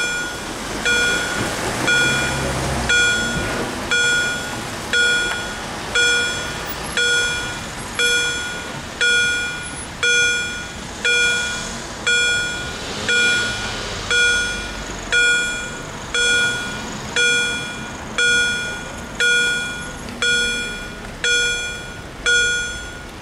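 Railway level-crossing warning bells (EHL-S10 electronic bells) dinging about once a second, each ding a bright multi-tone chime that fades before the next: the crossing is signalling that a train is coming. Cars rumble past under the dings.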